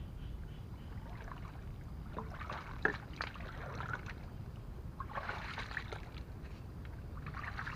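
Footsteps wading through shallow muddy water and treading on wet leaves and grass, in uneven clusters of sloshing and rustling over a low steady rumble.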